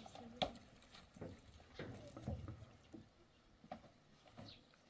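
A few faint, scattered knocks and clicks, the sharpest about half a second in and a small cluster between one and two and a half seconds in.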